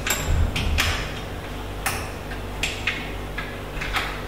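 Scattered sharp clicks and light knocks, about five in four seconds, from a small object being handled, over a steady low room hum.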